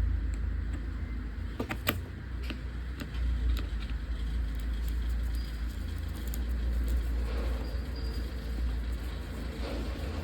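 Small clicks and light rattles of a damaged AC plug and its wires being handled, over a steady low rumble.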